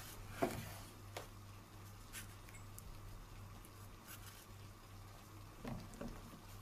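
Kitchen knife slicing a tomato on a wooden cutting board: a few soft, irregularly spaced cuts and taps, the sharpest about half a second in, over a faint low hum.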